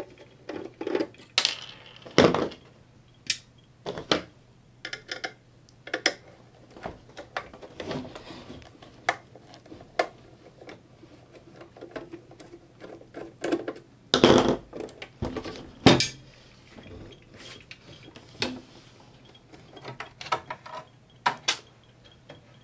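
Irregular metallic clicks, taps and knocks of a screwdriver and loose parts being handled against a Pioneer DJM-400 DJ mixer's metal case as its screws are taken out and the top plate is lifted. A few louder knocks stand out, about two seconds in and twice around fourteen to sixteen seconds in, over a faint low hum.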